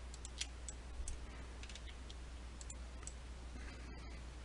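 Scattered light clicks of a computer mouse and keyboard, irregular and a few per second, over a faint steady hum and hiss.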